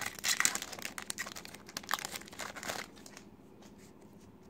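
Foil wrapper of a Pokémon Generations booster pack crinkling as it is torn open, for about three seconds, then fading to faint handling sounds.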